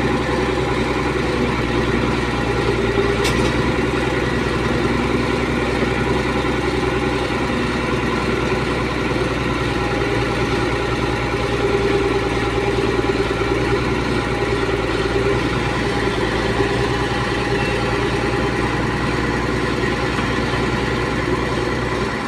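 Heavy diesel engine of a logging machine running steadily at an even speed.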